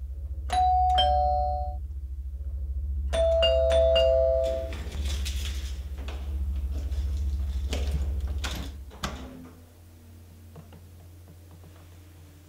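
Electric doorbell chime rung twice, about three seconds apart, each time a higher note falling to a lower one: ding-dong. A steady low hum runs underneath and stops about three-quarters of the way in, and a few clicks come before it stops.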